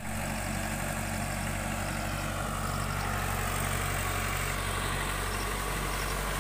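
Mahindra tractor's diesel engine running steadily with a low, even hum.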